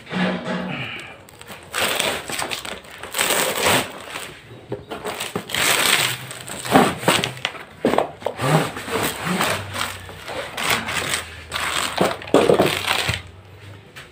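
Long cardboard rifle box being opened by hand: the lid is pulled up and slid off, with cardboard scraping and rustling in an irregular string of noisy bursts.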